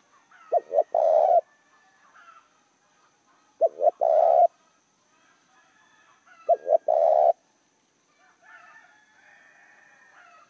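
Spotted dove cooing: three phrases about three seconds apart, each two short coos followed by a longer one.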